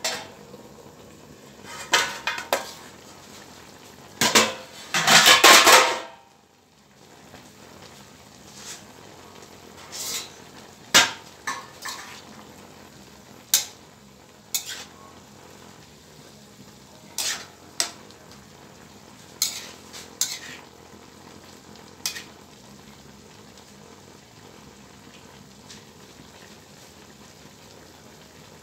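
Metal spatula clattering and scraping against an aluminium wok as mixed vegetables are stir-fried, over a low sizzle of frying. The clatter is loudest about four to six seconds in, then comes as separate knocks every second or two and thins out in the last few seconds.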